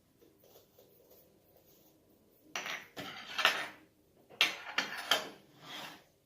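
Spoon scraping and clinking against a bowl in two rough clusters of strokes, starting about two and a half seconds in.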